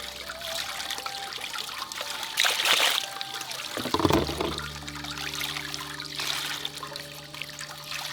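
Water trickling and splashing, louder in a couple of surges, over soft background music of long held notes.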